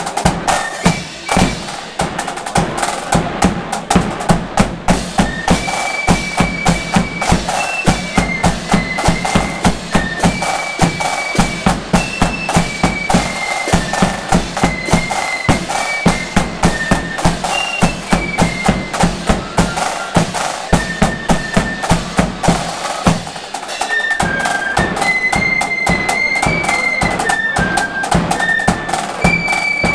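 Marching flute band playing a tune: a high flute melody over snare drums, a big bass drum and clashing cymbals beating a steady march rhythm.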